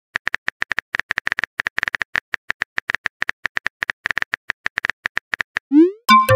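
Simulated phone-keyboard typing clicks, a fast even run of about nine taps a second as a chat message is typed. Near the end the clicks stop, a short rising whoosh marks the message being sent, and a louder chime follows.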